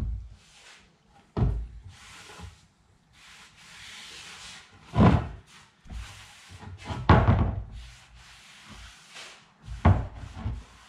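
A rag rubbing stain onto a red oak stair tread, broken by several wooden knocks, the loudest about five and seven seconds in.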